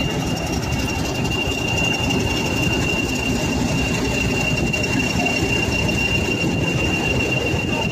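Class 40 diesel locomotives' English Electric 16-cylinder engines running with a steady rumble, over which a steady high turbocharger whistle holds without change.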